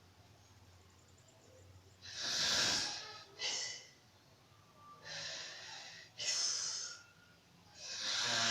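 A woman snoring in her sleep: five noisy, hissing breaths in and out, each half a second to a second long, with short quiet gaps between them.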